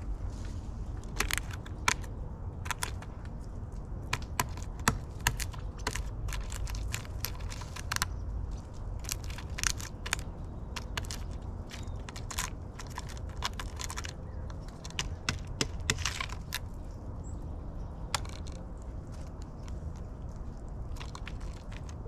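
Black-billed magpie pecking and cracking at in-shell peanuts on a wooden platform feeder: irregular sharp taps and cracks, in clusters, thinning out in the last few seconds, over a low steady rumble.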